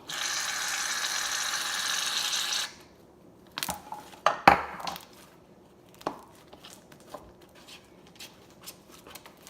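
Aerosol can of shaving cream spraying with a steady hiss for about two and a half seconds, then a few hard knocks and clatters, the loudest about four and a half seconds in.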